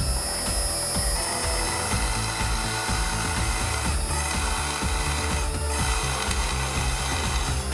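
Wabeco F1200 milling machine spindle turning a twist drill in a drill chuck, hand-fed down through a metal angle section. A steady high whine sits over a dense, rapidly chattering low rumble.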